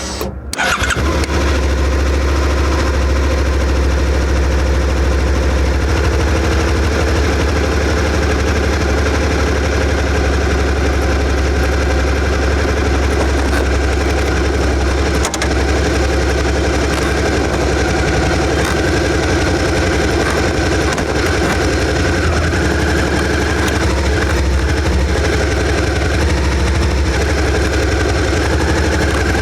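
Suzuki SV650's 645 cc V-twin with its stock exhaust catches about half a second in, then runs steadily.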